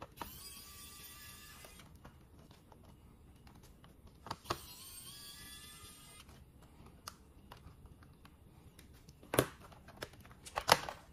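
A small electric screwdriver whirs twice, each run lasting about a second and a half with a slightly rising whine, as it backs out the laptop keyboard's screws. Near the end come a few sharp clicks as the keyboard's retaining clips snap free when the keyboard is pried up.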